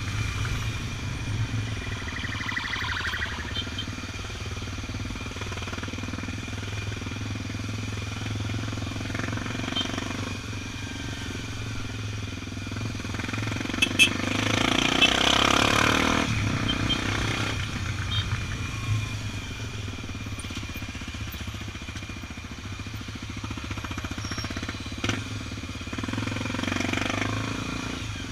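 Onboard sound of a Honda XR 250 Tornado's single-cylinder four-stroke engine running steadily at cruising speed in traffic, with road and wind noise. The sound swells louder for a couple of seconds about halfway through.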